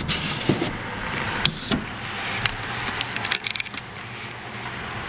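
Pickup truck running, heard from inside the cab. There is a rustle at the start, two clicks about a second and a half in, and a quick clatter of clicks past the middle.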